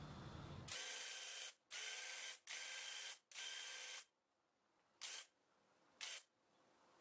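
Battery-powered handheld paint sprayer spraying a coat onto a cabinet panel: four passes of hiss, each about a second long with brief gaps, then two short squirts about a second apart.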